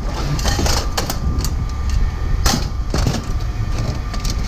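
Irregular knocks and clatter of scrap items being handled, the loudest about two and a half seconds in, over a steady low rumble.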